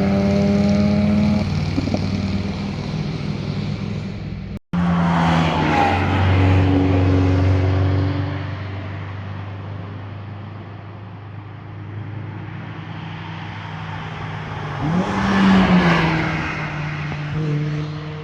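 Cars driving past one after another, their engines and exhausts revving, with the pitch sliding up and down as each goes by. The sound breaks off sharply about a third of the way in, then another car passes, and a further car swells loudly near the end.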